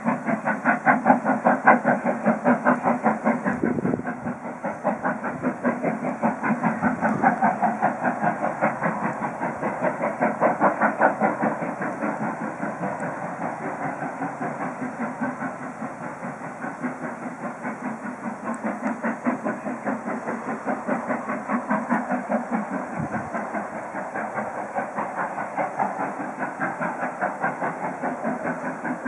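Steam locomotive working a passenger train, its exhaust chuffing in a steady rhythm of several beats a second that swells and eases in loudness.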